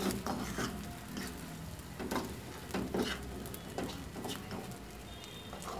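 Scrambled eggs with spinach frying in a nonstick pan over low heat, with a soft sizzle. A utensil scrapes and taps against the pan now and then as the eggs are stirred.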